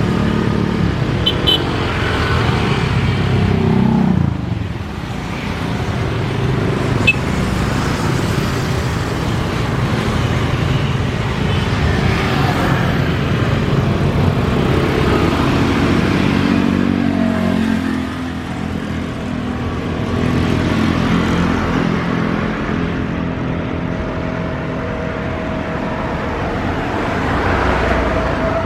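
Road traffic: cars and motorcycles passing one after another, their engine sounds swelling and fading over a steady background of traffic noise.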